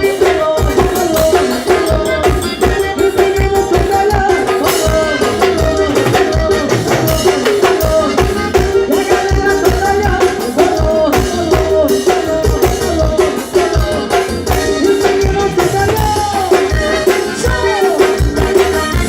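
Forró band playing live through a loud sound system: amplified music with a fast, steady beat and a sung melody.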